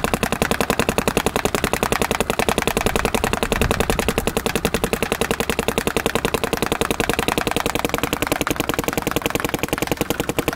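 Dye M2 electronic paintball marker running on compressed air, firing a rapid, unbroken stream of shots as it empties a pod of paintballs.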